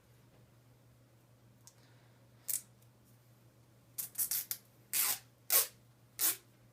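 Cloth hockey tape being pulled and torn off a split roll in short strokes, starting about two and a half seconds in and coming quicker in the second half.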